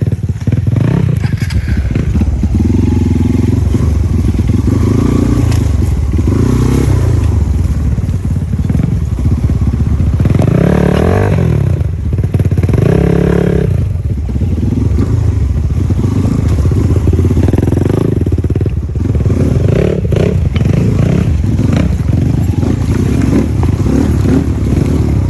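Motorcycle engine running, its pitch rising and falling twice around the middle.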